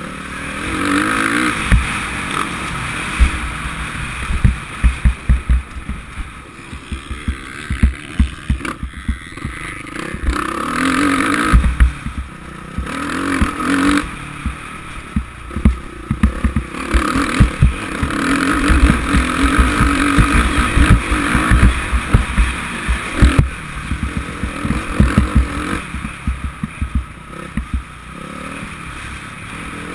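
Suzuki RM-Z450 four-stroke single-cylinder motocross bike ridden hard, the engine revving up and falling off again and again through gears and corners. Dense low thumps and buffeting on the helmet-mounted camera run under it.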